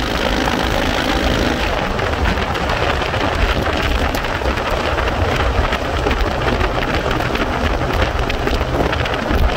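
Wind buffeting the microphone of an open vehicle travelling at highway speed, a loud steady rush with crackle, and the engine's hum showing underneath for the first second or two.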